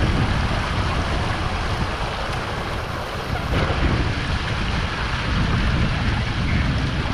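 Steady rush of running water mixed with wind buffeting the microphone, as a low, fluttering rumble under an even hiss.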